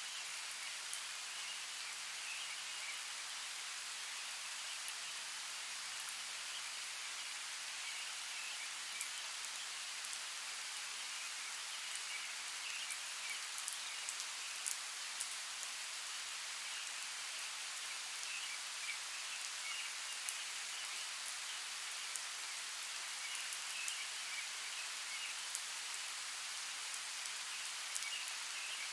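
Steady rain falling, an even hiss with many sharp drop ticks, and faint bird chirps scattered through it.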